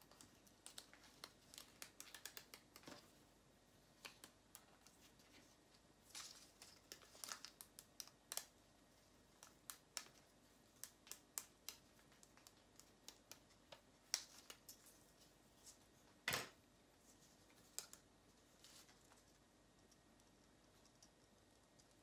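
Faint handling of a ribbon with rhinestone trim: scattered small clicks and rustles, with scissors snipping. The sharpest click comes about 16 seconds in.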